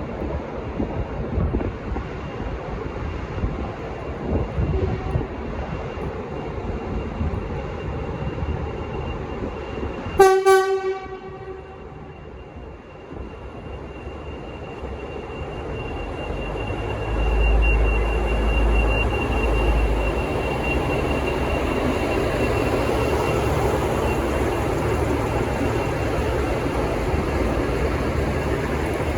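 V/Line VLocity diesel multiple unit sounding one short blast of its low-note horn about ten seconds in. Its engines then run up as it pulls away, with a deep rumble about seventeen seconds in and steady running after.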